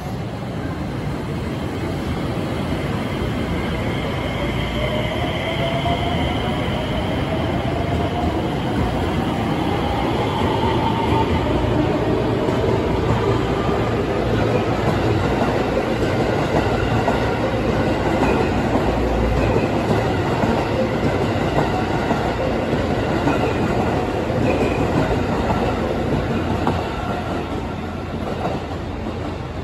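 JR West 225-series and 223-series electric train pulling away from the platform. The electric motors' whine rises in pitch as it accelerates over the first ten seconds or so, over the steady running noise of the cars rolling past. The noise eases near the end as the last cars draw away.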